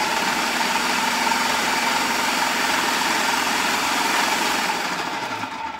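Electric countertop food processor running steadily with a high whine, chopping cilantro with oil, then winding down near the end.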